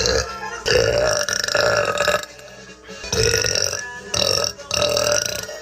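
A woman burping: one long burp starting about a second in, then several shorter burps one after another.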